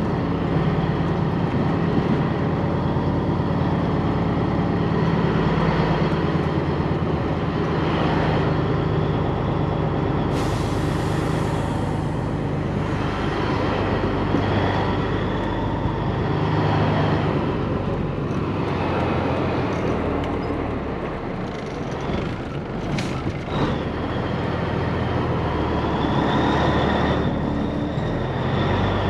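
Caterpillar diesel engine of a Peterbilt 362 cabover truck running at low speed, heard from inside the cab, its note shifting as the truck creeps along. About ten seconds in, air hisses out of the air brakes and fades over a second or two.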